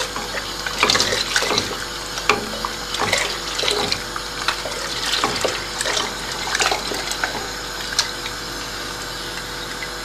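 Egg-lemon liaison pouring in a thin stream into a stainless steel pot of boiling trotter soup, with a spoon stirring steadily and clicking irregularly against the pot. The constant stirring keeps the egg from curdling.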